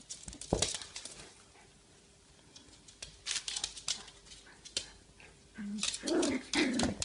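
Puppies play-fighting: scuffling knocks and clicks, then short yips and growls near the end.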